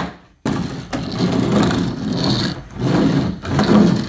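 Homemade plywood caster wheels on bearings rolling back and forth across a wooden workbench top under a plywood board, a rumble that starts about half a second in and swells and fades with each push and pull.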